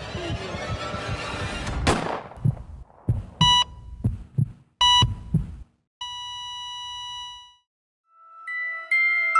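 Film sound effects for a death: a rising rush of noise cut off by a sharp gunshot-like bang about two seconds in, then slow paired heartbeat thumps with two heart-monitor beeps, ending in a long steady monitor tone, the flatline. Soft glockenspiel-like music begins near the end.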